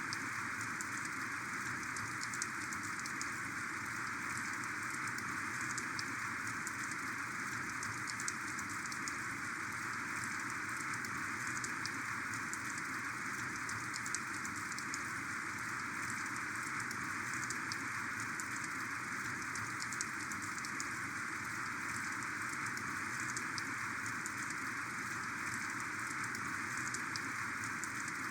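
Heavy, torrential rain falling steadily, a dense even hiss with many small drop ticks scattered through it.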